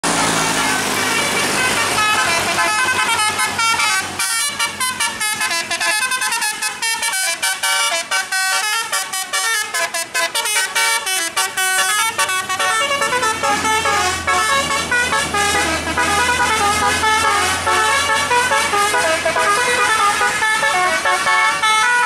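Telolet musical air horn on a tour bus playing a quick tune of rapidly changing notes. A low engine hum comes in about two-thirds of the way through.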